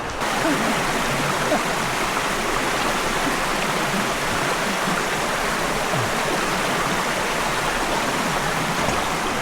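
Steady rush of fast-flowing water, an even hiss without a beat that starts suddenly at the beginning.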